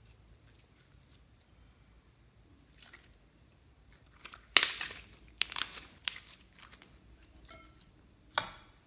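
Clear green slime with small confetti pieces being squeezed and pressed by hand, giving a few short, sharp bursts of sound: the loudest about four and a half seconds in, a cluster about a second later, and one more near the end.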